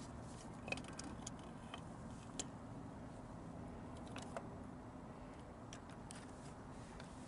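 Scattered faint, light metallic clicks and taps as a Detroit Series 60 unit injector and its hold-down clamp are handled and seated in the cylinder head, over a low steady background hum.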